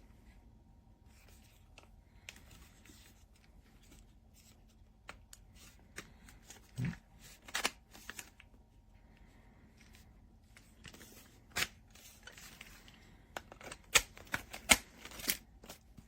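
Objects being handled: soft rustling with scattered sharp clicks, a dull thump about seven seconds in, and a quick run of the loudest clicks near the end.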